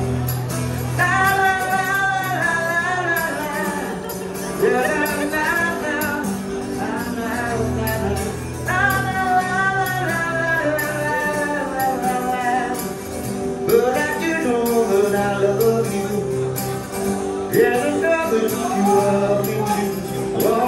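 Street buskers performing live: a singer with an acoustic guitar over a steady percussive beat, played through a small amplifier.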